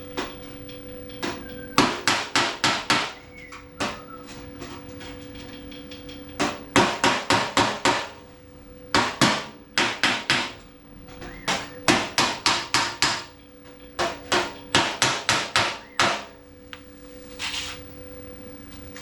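Hammer and dolly planishing a mild-steel MIG weld in sheet-steel panel: quick runs of sharp metal-on-metal blows, about four or five a second, in groups with short pauses. A steady hum runs underneath.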